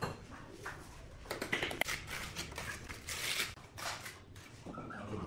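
Bricklaying by hand: a metal trowel scraping and spreading wet mortar, with short irregular knocks as bricks are set down and tapped into place.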